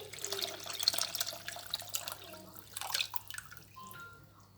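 Freshly squeezed orange juice being poured into a bowl of grated orange zest and sugar, splashing and trickling, tapering off about three seconds in.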